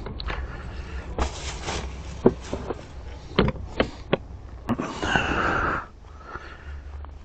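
Plastic Honda scooter top case being shut: a run of sharp clicks and knocks from its lid and latch. About five seconds in, a second-long rustle follows as riding gloves are pulled on.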